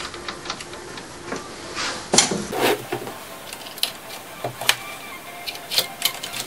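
Light metallic clicks and taps from pop rivets being fitted into holes drilled in a cutting disc and a hand rivet tool being set on them, with one louder clunk about two seconds in.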